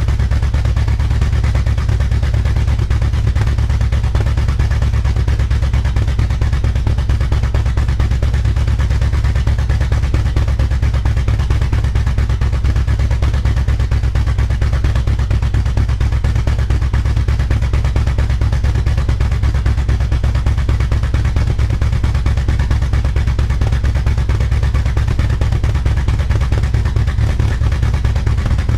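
A 1964 Dodge Custom 880's big-block V8 idling steadily with an even exhaust beat, holding the same speed throughout.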